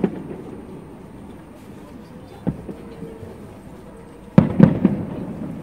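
Aerial firework shells bursting: a bang right at the start, another about halfway through, then a quick run of several bangs near the end, each trailing off in a short echo.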